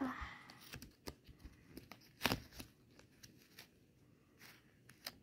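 Light clicks and taps of fingers and small tumbled gemstones against a plastic compartment tray: several separate knocks, the loudest about two seconds in.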